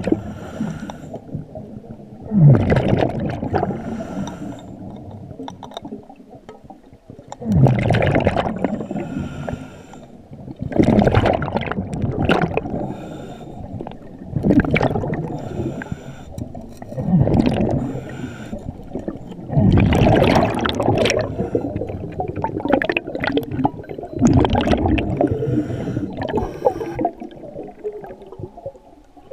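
Scuba diver breathing through a regulator underwater: a loud gurgling rush of exhaled bubbles every few seconds, with quieter inhales between.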